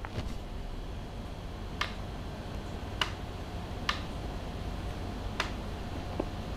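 Computer mouse buttons clicking: six single sharp clicks, spaced roughly a second apart, over a steady low hum.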